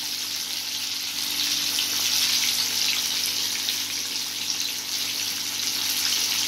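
Batter-coated chicken pieces deep-frying in hot oil in an iron kadai: a steady sizzle with fine crackling.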